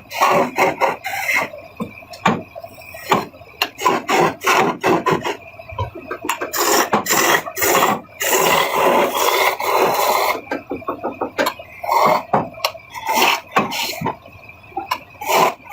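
Turning tool scraping and cutting wood on a spinning lathe, in many short, irregular raspy strokes.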